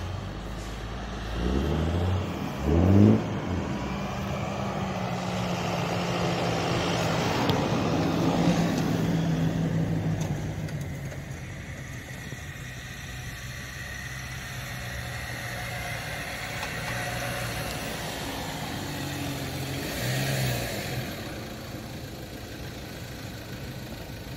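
Off-road 4x4 engines crawling along a snowy track. An engine revs up sharply twice about two to three seconds in, then runs steadily under load, settling to a lower note about ten seconds in, with another brief rise near twenty seconds.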